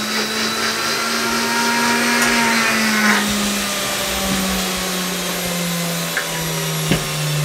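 Electric blender jug running steadily, grinding boiled chickpeas into a paste. Its motor hum sinks slowly lower in pitch.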